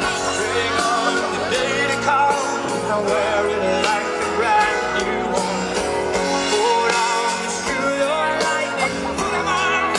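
Rock band playing live with a lead vocal over guitars and drums, heard from among the crowd at an open-air concert.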